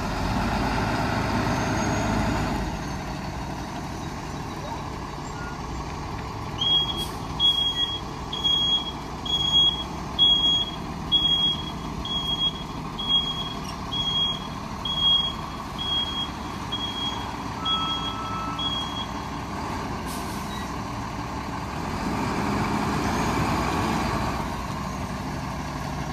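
Hino 258 box truck's 7.6-litre diesel engine running as the truck is moved, louder for the first couple of seconds and again near the end. Its backup alarm beeps repeatedly through the middle, for about twelve seconds, while the truck reverses.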